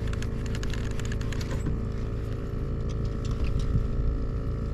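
Small boat's motor running steadily with a low rumble and a constant hum. For the first second and a half, a fishing reel ticks rapidly as it winds in slack line, then stops.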